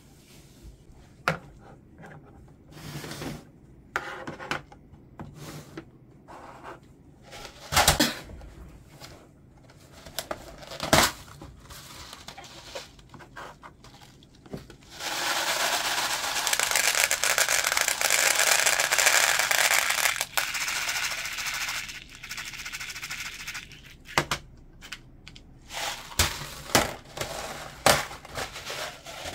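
Scattered knocks, scrapes and crackles of plant pots and potting soil being handled, with a steady rushing noise for about seven seconds in the middle.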